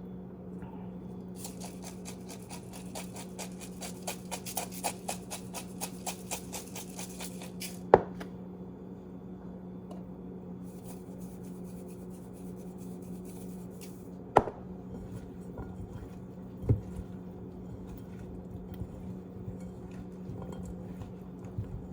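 Salt and pepper mills grinding in two spells of rapid clicking, each ended by a sharp knock as a mill is set down, with another knock a couple of seconds later. A steady low hum runs underneath.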